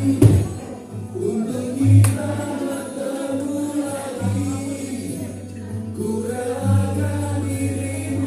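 Music with singing, with a sharp percussive hit just after the start and another about two seconds in.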